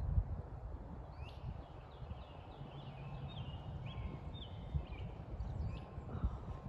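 Wind rumbling on the microphone, heaviest at the start, with a bird calling in a run of short high chirps in the background.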